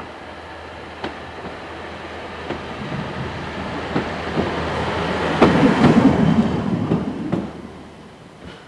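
Drewry railcar running past on jointed track: its wheels click over the rail joints at intervals while its running noise grows louder as it approaches, peaks as it passes close by, then falls away near the end.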